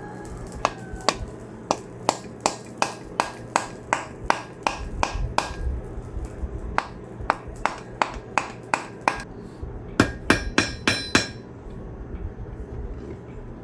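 Hand hammer striking steel on an anvil in forging, about two to three blows a second with a short break. Near the end comes a quick run of brighter, ringing blows, and then the hammering stops.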